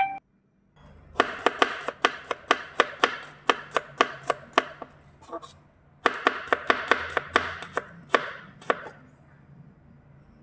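Kitchen knife slicing shallots and then garlic cloves on a plastic cutting board, the blade tapping the board about five times a second in two runs with a short pause about five seconds in.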